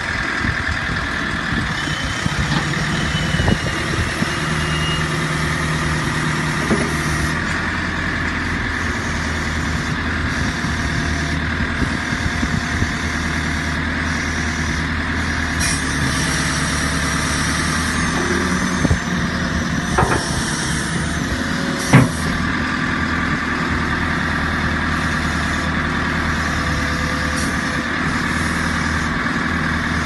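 JCB 3CX backhoe loader's 68 kW four-cylinder diesel engine idling steadily. A few light clicks and one sharp metallic knock come about three-quarters of the way through.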